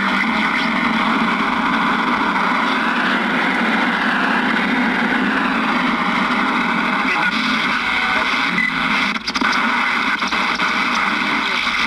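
Radio receiver static: a steady rushing hiss with faint warbling tones, one tone gliding up and back down about a third of the way in, and a brief dropout near the end.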